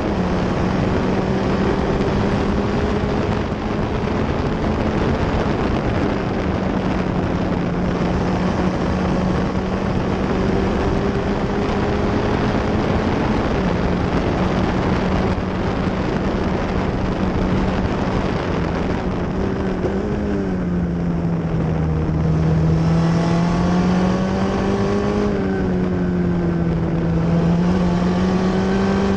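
Onboard sound of an F1600 formula car's 1.6-litre four-cylinder engine running at steady high revs, with wind noise over the microphone. About two-thirds of the way through, the revs drop and climb again a few times through the corners.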